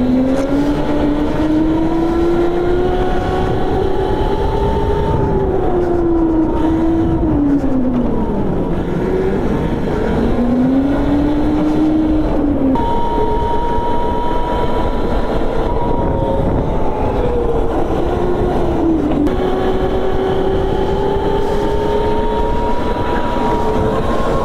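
Go-kart engine running at speed, its pitch climbing as it accelerates, dipping sharply about eight seconds in as it slows, then climbing again; the pitch jumps abruptly about halfway through.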